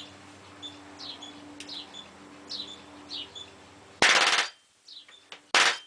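Battery-powered palm nailer hammering twisty nails into wood: a rapid half-second burst of strokes about four seconds in, then a shorter burst near the end. Birds chirp in the background.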